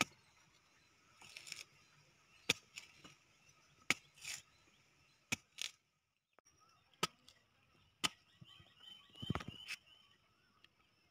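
Sharp, irregular chops of heavy knives striking palmyra palm fruits as they are cut open, roughly one blow every second or so, the heaviest one about nine seconds in.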